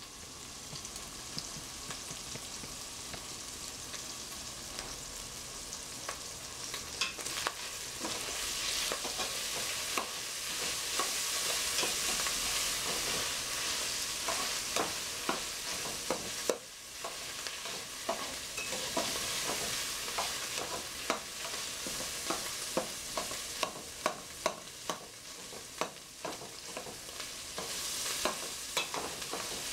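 Crumbled sausage frying in a stainless steel pot with a steady sizzle, while a utensil stirs it. From several seconds in, the utensil scrapes and clicks against the pot over and over.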